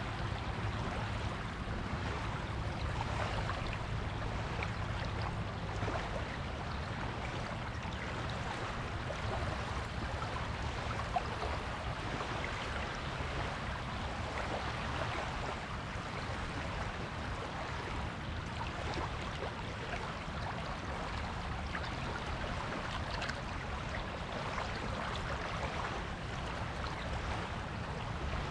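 Small waves washing onto a beach, a steady rush of water.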